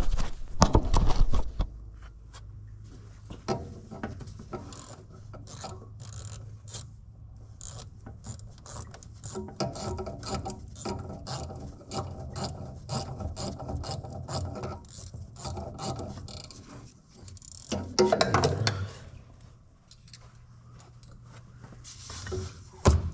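Hand ratchet wrench clicking in a long run of quick strokes as fasteners are turned in a tractor's engine bay. There are a few louder metal knocks near the start and near the end.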